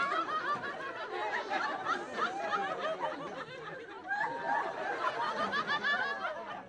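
Comedy club audience laughing, many voices at once, easing off about four seconds in and then picking up again.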